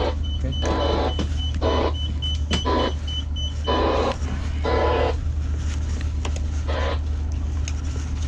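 A small electric motor whirring in short bursts, about seven of them at uneven gaps, over a steady low hum. A faint, rapid high ticking runs through the first half.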